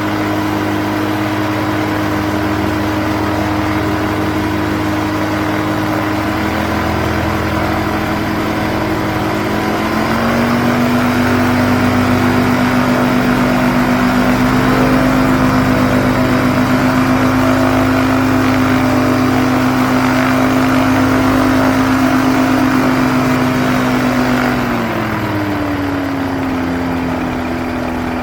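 Quicksilver ultralight aircraft engine running steadily. About ten seconds in, its note shifts and it gets louder; near the end it drops lower and quieter, settling toward idle.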